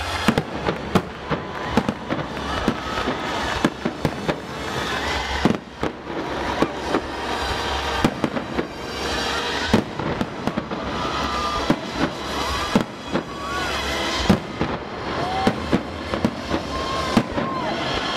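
Fireworks display: aerial shells bursting in an irregular run of sharp bangs and crackles.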